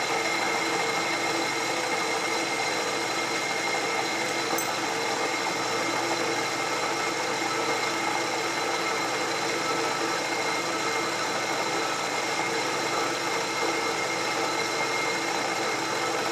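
Milling machine spindle running at a constant speed, a steady motor hum with a few fixed whining tones, while a spinning edge finder is fed toward the workpiece to pick up an edge.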